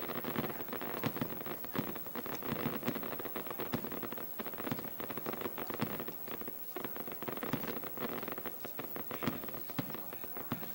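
Fireworks from a balloon's fireworks load going off in the air as a rapid, irregular crackle of many small pops.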